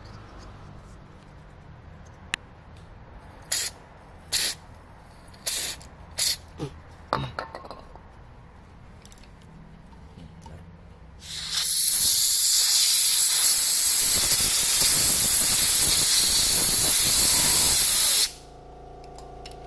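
A few sharp clicks from handling the small switch parts, then an aerosol cleaner spray can fired through its extension straw in one steady hiss lasting about seven seconds, cutting off abruptly. It is cleaning the oxidised copper contacts of a BMW E36 brake light switch that has been working on and off.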